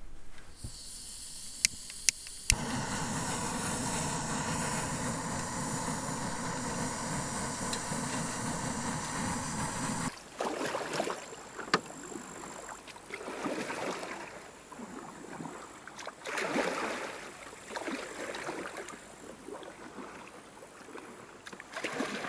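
A steady rushing noise for several seconds, then, after a sudden change, a canoe paddle stroking through the water with a splashy whoosh every two to three seconds.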